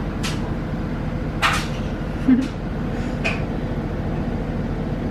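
Steady low mechanical hum, with three brief soft rustles and a short low murmur a little past two seconds in.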